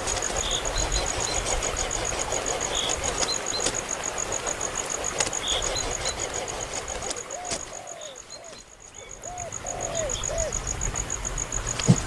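Short high bird chirps every second or two over a steady, fast-pulsing high trill and a low rumble. A run of short, low rising-and-falling calls comes in about two-thirds of the way through.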